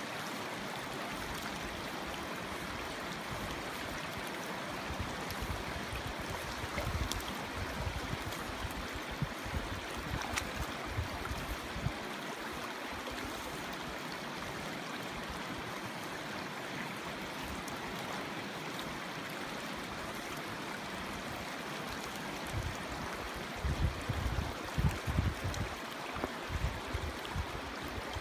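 River water flowing steadily in a continuous rushing wash. Irregular low rumbling bumps come twice, once a few seconds in and again near the end.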